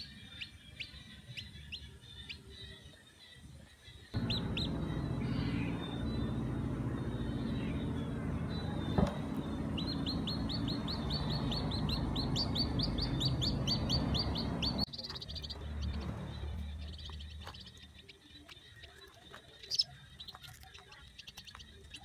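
Newly hatched bird chick peeping in quick, high chirps, with a fast, even run of them in the middle and more near the end. A steady low drone of unclear source sounds under the chirps from about four seconds in until about fifteen.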